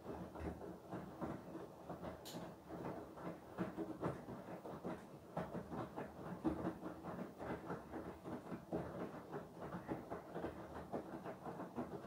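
Beko WTK104121W front-loading washing machine on a Cottons 60 cycle, its drum tumbling wet laundry in soapy water: uneven sloshing and slapping as the load falls and turns. There is one sharp click about two seconds in.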